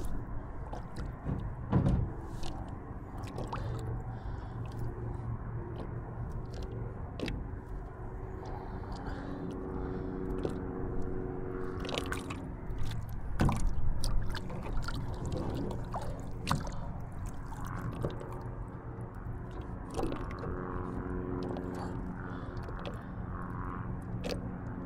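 Scattered knocks and handling clatter, loudest about two seconds in and again about halfway through, over a faint low steady hum.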